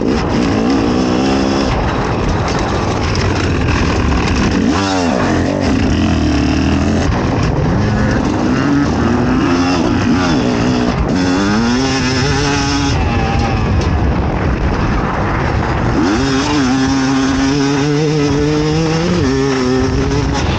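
Fantic XE 300 two-stroke enduro motorcycle engine being ridden hard off-road, its pitch repeatedly climbing under throttle and dropping off as the rider shifts or rolls off, with a long climb near the end.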